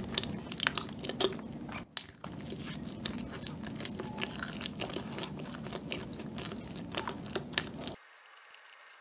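Close-miked chewing of a mouthful of soft bread: many small wet mouth clicks and smacks over a low steady hum. The sound cuts off about a second before the end.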